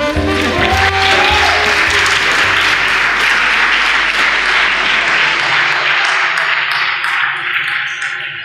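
Audience applauding, over background music that fades out in the first two or three seconds; the clapping thins to scattered claps near the end.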